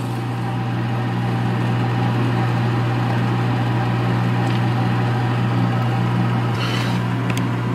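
A steady low mechanical hum with a hiss over it, unchanging throughout, and a few faint clicks of a metal spoon against the saucepan.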